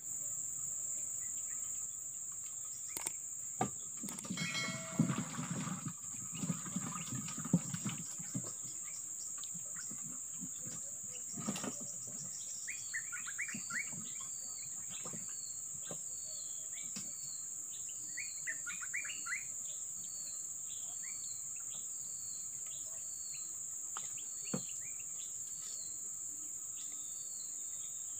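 Steady high-pitched drone of insects, with a bird giving a short chirp about once a second and, a few times, a quick run of rising notes. A few knocks and some rustling in the first part.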